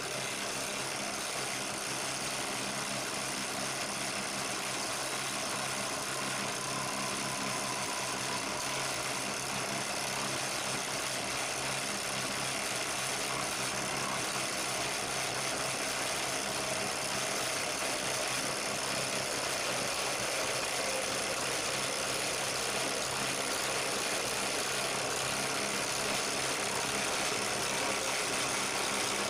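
Drill press running steadily with a cutting bit side-milling a slot along a cardboard rocket body tube: a constant motor hum under the hiss of the bit cutting through the cardboard.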